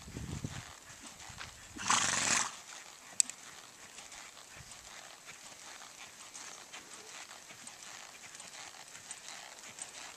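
Quarter Horse jogging on soft sand arena footing, with soft, muffled hoofbeats. About two seconds in the horse gives a loud snort about half a second long, followed soon after by one sharp click.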